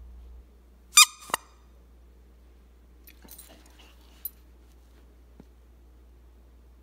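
A Swiss mountain dog gives two short, sharp, high-pitched yips about a second in, the first louder than the second; a few faint clicks follow.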